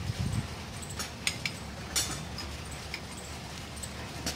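Steel spanners clinking against the centre-pin bolt and nut on a tractor's front-axle pivot as they are fitted and turned. There are a few short sharp clinks about a second apart over a low steady hum.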